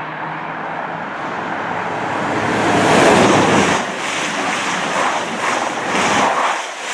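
Two coupled Class 222 Meridian diesel multiple units passing at speed without stopping. A rushing of air and wheel-on-rail noise builds to its loudest about three seconds in, stays high as the coaches go by, and falls away near the end.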